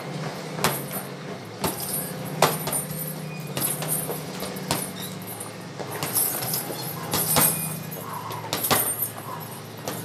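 Boxing gloves punching a hanging heavy bag: hard single thuds at irregular intervals, about one every second or so, over a steady low hum.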